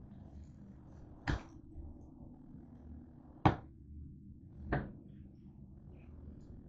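Three short knocks and clunks about a second or two apart, the middle one loudest, as a refrigerator is handled and its door opened.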